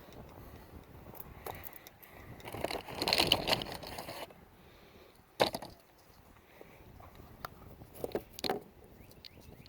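Handling noises: a rustling scrape, then a single sharp click about halfway through and a few smaller clicks near the end.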